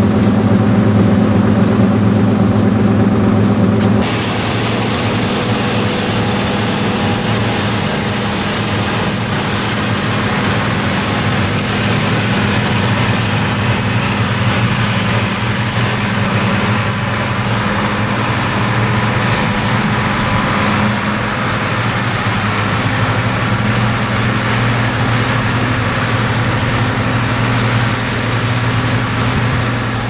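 Heavy farm machinery engines running steadily, the engine note changing abruptly about four seconds in.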